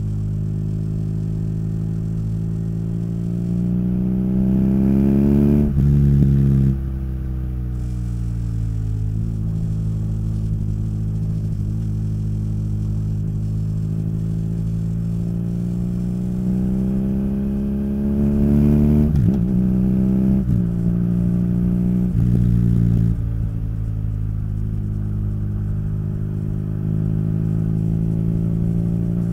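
BMW R nineT's boxer twin running through its Akrapovic exhaust while riding. The engine pitch climbs under acceleration and falls back at several gear changes, then holds steady near the end.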